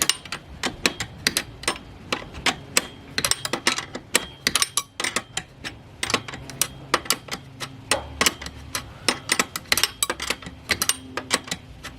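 Hand tools and small metal parts of a car seat's height-adjuster mechanism clicking and clinking in quick, irregular runs, as Torx fasteners are worked.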